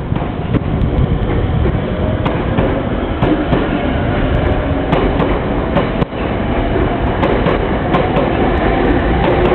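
A train passing close by: a steady heavy rumble of the cars with sharp clicks as the wheels cross rail joints.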